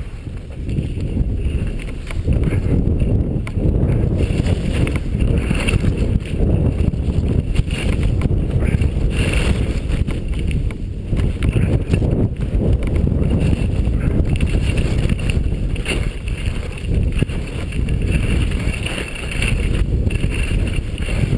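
Wind buffeting a head-mounted action camera's microphone while skiing downhill, a steady low rushing with rapid flutter, with the skis sliding over packed snow underneath.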